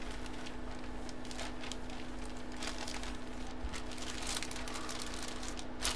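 Room tone: a steady low electrical hum, with faint rustling and a few light clicks scattered through it.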